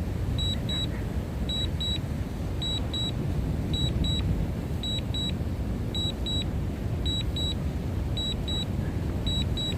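Drone remote controller sounding a warning alert: pairs of short high beeps, about one pair a second, repeating steadily. Under it, a low rumble of wind buffeting the microphone.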